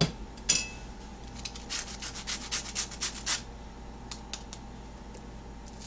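Crisp batter crust of an air-fried corn dog crackling as it is squeezed by hand. Two sharp cracks come first, then a run of quick crackles, then a few scattered ones. The crust is very crispy.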